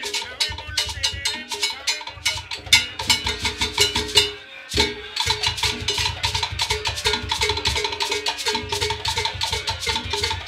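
Cuban rumba percussion: conga drums played in a fast interlocking rhythm over sharp wooden clicks. The playing drops away briefly about four seconds in, then picks up again.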